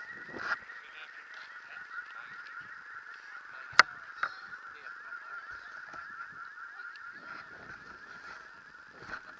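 A steady, high-pitched, wavering buzz, with a sharp click a little under four seconds in and a smaller one just after as a hand handles the model glider's propeller.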